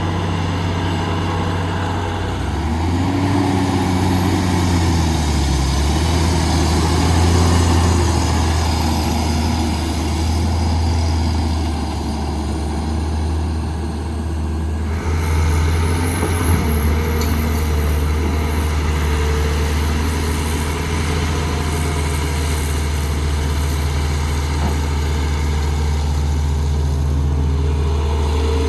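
Heavy diesel engine of earth-moving machinery running steadily, its pitch rising and falling a few seconds in as it is revved. About halfway through the sound shifts abruptly to another steady engine note with a faint high whine over it.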